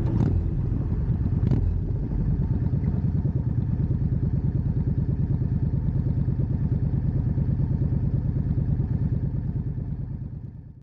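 Yamaha V-Star 650's V-twin engine idling through Vance & Hines Short Shots exhaust, an even, rapid low pulse. Two sharp clicks sound in the first second and a half, and the engine sound fades out at the end.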